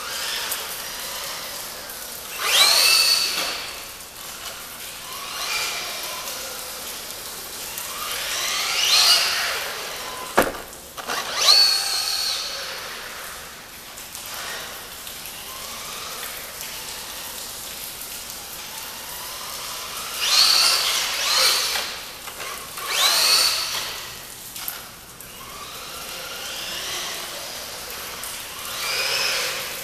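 Brushless electric motor of an Aleko L212 PRO RC truck whining in repeated full-throttle bursts, each a rising whine that climbs steeply and falls away as the truck speeds up and slows. A steady hiss runs underneath, with a sharp knock about ten seconds in.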